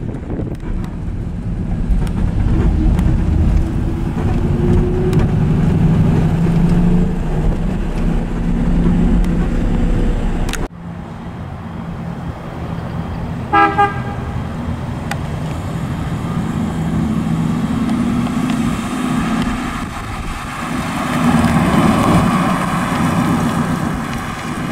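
1954 Ford Mainline's V8 engine running as the car drives, rising in pitch as it accelerates over the first ten seconds or so. About halfway through a short car horn toot sounds, and the engine swells loudest near the end as the car drives past.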